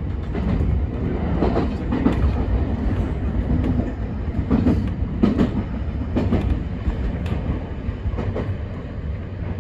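Kintetsu train heard from inside the front of the car, a steady rumble of wheels on rail with irregular sharp thuds as the wheels cross rail joints and points, as it pulls into a station.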